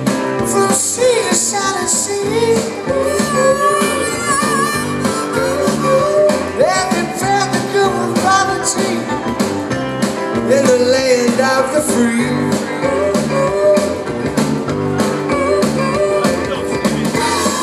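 Live rock band playing through a PA: drums, bass and guitars with a steady beat and a sung lead melody over them.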